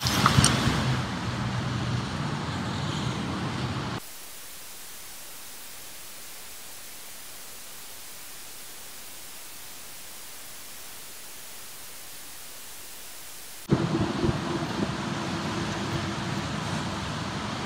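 Traffic on rain-soaked streets: vehicles passing with tyres hissing on wet pavement. About four seconds in it gives way to an even, featureless hiss for about ten seconds, then the wet-street traffic sound returns with a steady engine hum.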